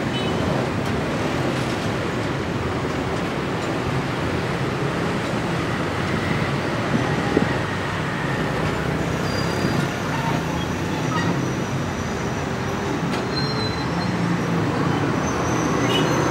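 Passenger train coaches rolling slowly along the track during shunting: a steady rumble with a low hum underneath. Faint high squeals come in from about halfway through.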